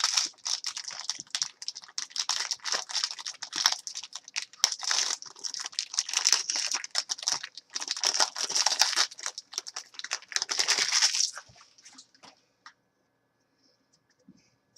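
Trading-card pack wrapper being torn open and crinkled by hand, a dense crackling rustle that stops about eleven seconds in, followed by a few faint ticks.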